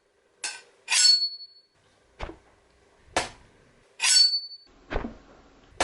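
A homemade Foley sound effect: objects struck about once a second, dull knocks alternating with bright clinks. The clinks each leave a high, glassy ring that hangs briefly.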